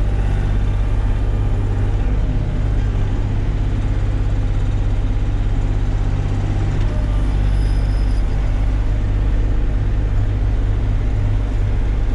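Kioti CK3510 compact tractor's diesel engine running steadily under loader work, heard from inside the closed cab.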